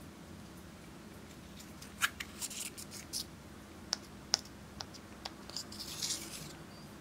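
A thin metal tool scraping and prying pressed eyeshadow out of a plastic compact, with sharp ticks as it strikes the pan and short scratchy crumbling as chunks break loose. It starts about two seconds in and goes in uneven spurts.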